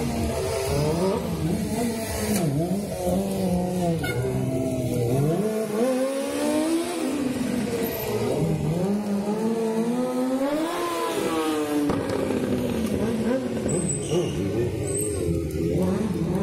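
Sport motorcycle engine revving up and down again and again as the rider holds wheelies, its pitch rising and falling every second or two. About ten seconds in it climbs steeply to a high rev, then drops back.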